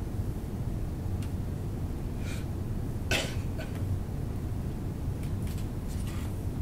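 Steady low room hum with a few short, scattered noises; the loudest, about three seconds in, is a single cough.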